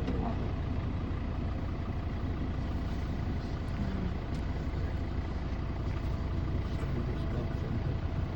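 Safari vehicle engine idling: a steady low rumble with no change in pitch or level.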